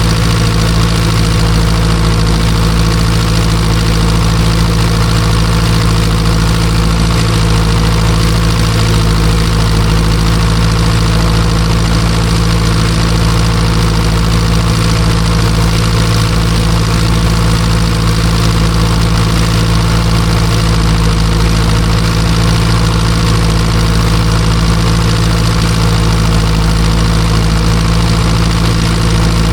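Ursus C-360 tractor's four-cylinder diesel engine running steadily at constant speed, pulling a disc harrow.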